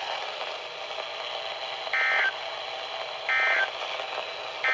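Emergency Alert System SAME data bursts over a steady radio hiss: two short, loud bursts of warbling two-tone data, about a second and a half apart, with a third starting at the very end. Short bursts like these, right after an alert's voice message, are the end-of-message code that closes the alert.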